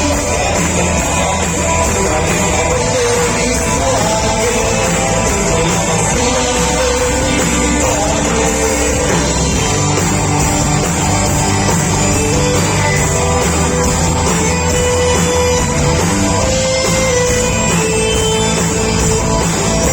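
A rock band playing loudly and continuously, full-band rock music.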